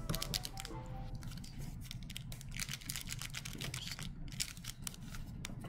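Pokémon trading cards and a booster pack handled by hand: rustling and crinkling with many quick clicks and light taps as a stack is squared against the table.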